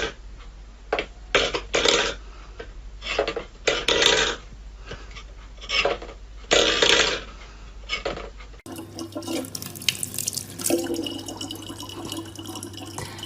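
Water splashing in irregular bursts about once a second, then, after a cut, fainter water running over a steady low hum.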